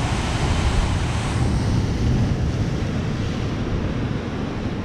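Ocean surf breaking and washing over a rocky shore, a steady rush of water, with wind rumbling on the microphone.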